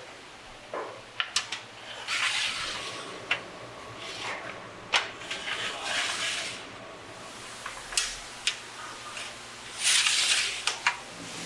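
Trays of noodles being slid along the runners of a metal drying rack: several scraping slides, each about a second long, and a scatter of sharp knocks as the trays go in.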